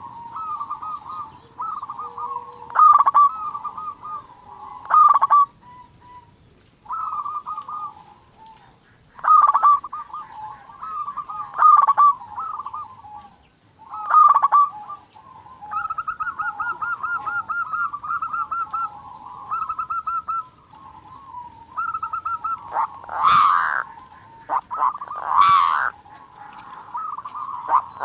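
Zebra dove (perkutut) cooing: repeated phrases of quick, rolling coo notes, a new phrase every second or two. Near the end come a couple of louder, harsher bursts.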